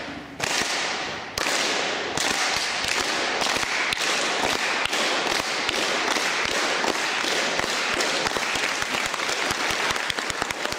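Audience applauding: many overlapping hand claps that swell in the first second or two and then hold steady.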